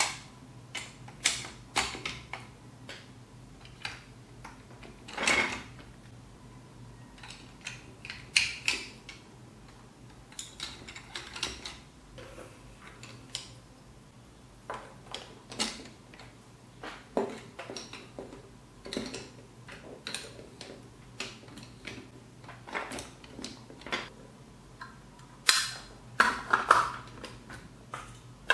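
Large plastic building bricks, beams and axles being handled and pressed together by hand, giving irregular clicks and clacks throughout, with a quick cluster of them near the end.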